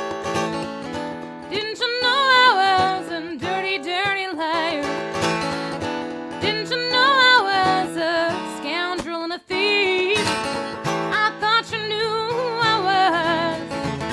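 A woman singing a song over her own steel-string acoustic guitar, strummed with a pick, with a capo on the neck. The singing and playing stop for a moment about nine and a half seconds in, then carry on.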